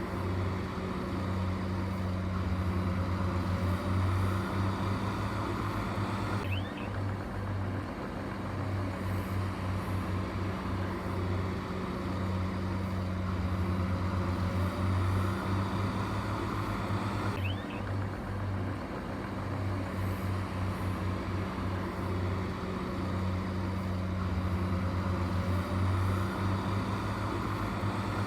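Diesel engine of heavy construction machinery running steadily with a deep, even hum, and twice a faint short squeal.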